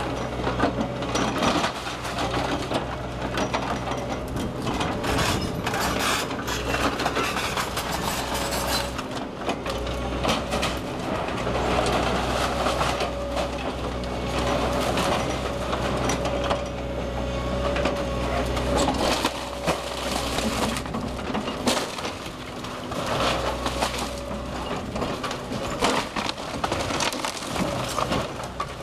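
Link-Belt hydraulic excavator demolishing a brick house: the machine's engine runs steadily beneath repeated crunching, cracking and splintering as its arm tears through roof framing, wood and brick. A steady higher whine from the machine comes and goes.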